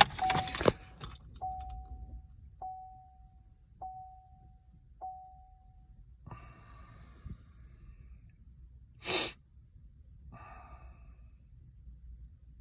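Car's warning chime with the ignition key on, dinging five times at an even pace of about one ding every 1.2 seconds, each ding fading away. After that come a few short noises, the loudest a brief burst about nine seconds in.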